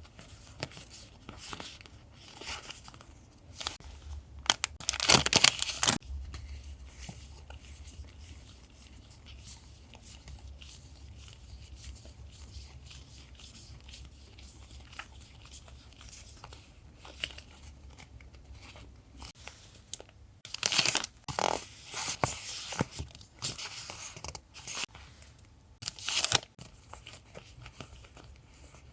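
Paper and packaging being handled close to the microphone: rustling, crinkling and tearing, loudest in a few bursts of a second or two, with soft taps and scratches between them.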